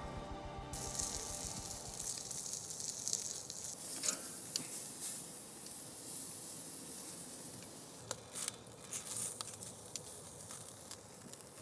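Steak sizzling on a hot grill grate: a steady high hiss with scattered sharp pops and crackles.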